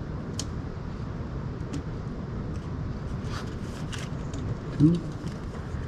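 Light clicks and rubbing of rubber vacuum hoses being worked off their fittings at the throttle body, scattered over a steady low background rumble.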